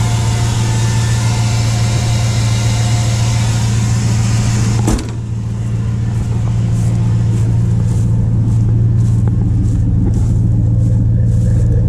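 Dodge Ram pickup's engine idling steadily and smoothly soon after a cold start from long storage. About five seconds in comes a single thump, after which the engine sounds duller, with light crunching footsteps in dry leaves.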